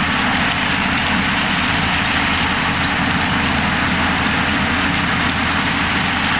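Heavy diesel engine of earthmoving machinery running steadily, a low engine drone under a broad hiss that does not rise or fall.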